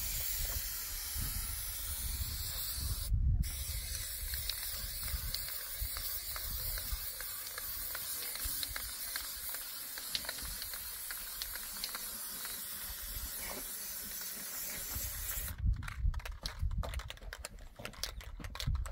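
Aerosol spray-paint can spraying in a long steady hiss, with a short break about three seconds in. The spraying stops a few seconds before the end, and a run of sharp clicks follows.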